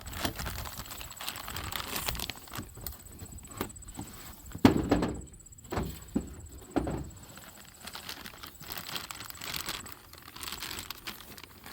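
Rustling, scraping and knocking as a new control arm and its parts are pulled out of a cardboard box and packaging, with the loudest thump a little under five seconds in.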